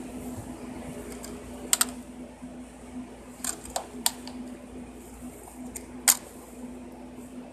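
Plastic DVD cases being handled: a handful of sharp clicks and taps, a close pair a couple of seconds in and the loudest about six seconds in, over a steady low hum.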